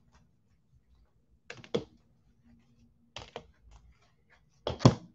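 Short clusters of clicks and taps from trading cards being handled, three times about a second and a half apart, the last the loudest.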